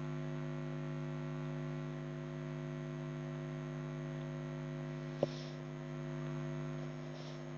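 Steady electrical mains hum in the recording. A single short click sounds about five seconds in.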